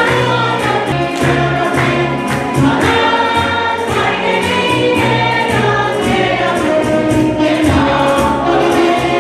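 Intro music: a choir singing sustained notes over a low instrumental line that changes note every second or so.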